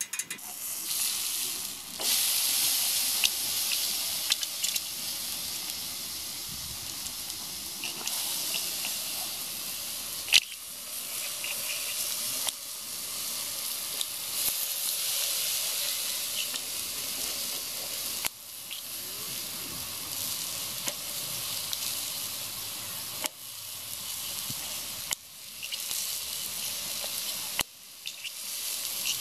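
Thick beef steaks sizzling steadily on a hot grill plate, with a few brief breaks and one sharp click about a third of the way through.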